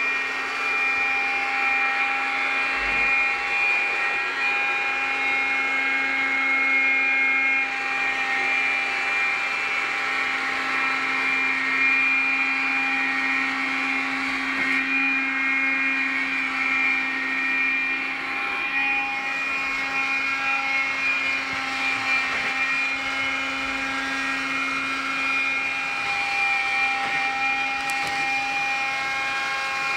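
iRobot Scooba floor-washing robot running as it scrubs a wet tile floor: a steady motor whir with a high whine over a lower hum.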